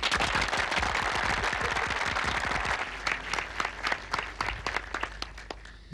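A crowd applauding: dense clapping for about three seconds, then thinning to scattered claps that die away.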